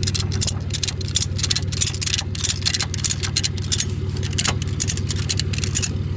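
Car engine idling steadily, with a run of irregular sharp clicks and crunches over it that stop near the end.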